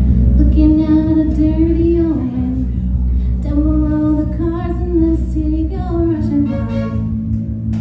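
Live rock band playing, with a woman singing lead over electric bass, drums, guitar and keyboard.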